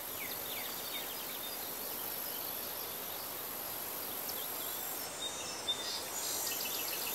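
Outdoor nature ambience: a steady high insect whine over a soft hiss, with scattered short bird chirps.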